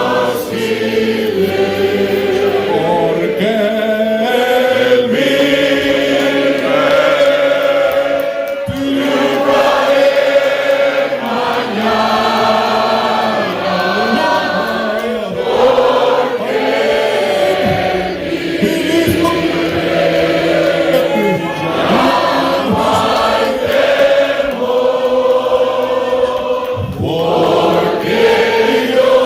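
A group of voices singing a slow hymn together, in long held notes that change every second or two.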